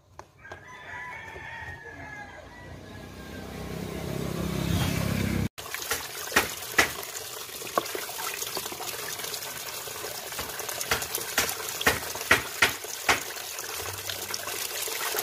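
Tap water running into a plastic basin and splashing as hands rinse a freshly plucked chicken, with many sharp splashes and knocks. In the first few seconds a rooster crows in the background while wet feathers are being plucked.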